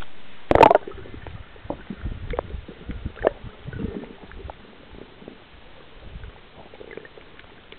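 Water splashing over a camera at the waterline, with one loud splash about half a second in, then muffled underwater knocks, clicks and gurgling rumbles as the camera goes under.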